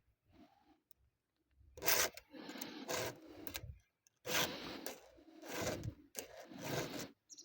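Rough scraping or rasping strokes, about four of them, each roughly a second long, starting about two seconds in.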